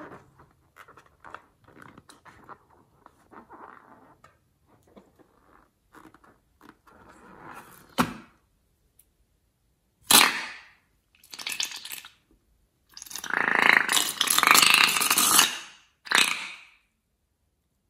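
A long rubber balloon squeaking faintly as it is handled, then slime squirting out of its neck into a bowl of slime in several loud wet spurts, the longest lasting about two and a half seconds near the end.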